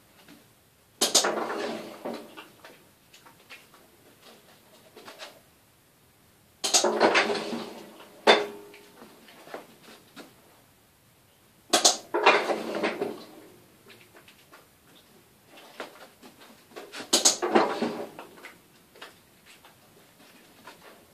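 Stainless-steel scent-detection station clattering and ringing about five times, a few seconds apart, each clank sudden and fading over a second or so, with light taps and scuffs in between as the dog works the station.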